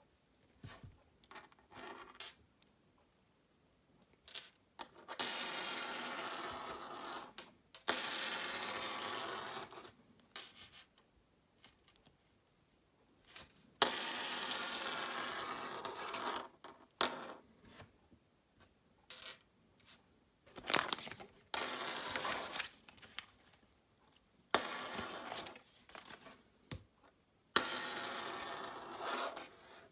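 A Kinder Surprise egg being unwrapped and opened by hand: three stretches of crinkling foil wrapper, a few seconds each, between sharp clicks and taps of small plastic parts.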